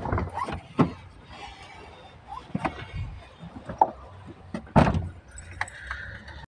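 A string of sharp knocks and clicks inside a car, over a faint low rumble; the loudest knock comes about five seconds in.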